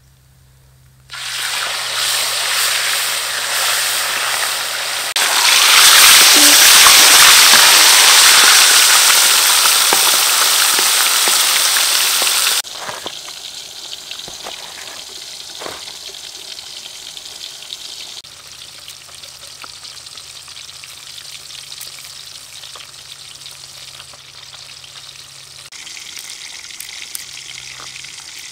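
Fish frying in hot oil in a wok: a loud sizzle starts suddenly about a second in as the fish goes into the oil, grows louder about five seconds in, and cuts off abruptly midway. After that only a much fainter background with occasional small clicks.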